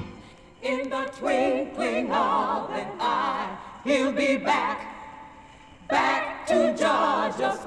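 Unaccompanied voices singing in harmony with a wide vibrato, in short held phrases that start and stop every second or two.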